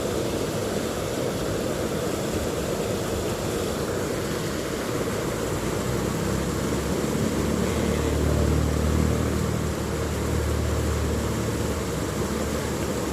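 Steady rushing outdoor noise, with a low engine hum that swells from about six seconds in and fades out near eleven seconds: a motor passing by.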